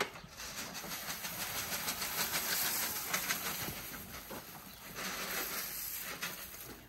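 Dry straw rustling and crackling as it is pushed and spread about, louder in the middle and easing off near the end.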